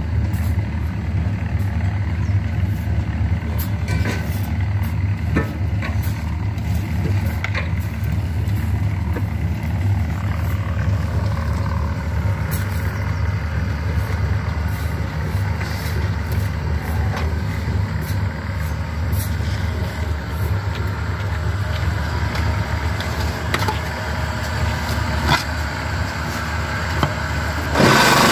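Concrete block-making machinery running with a steady, engine-like low drone, with scattered knocks and scrapes of shovels and barrows. Near the end a louder, higher-pitched machine sound comes in suddenly.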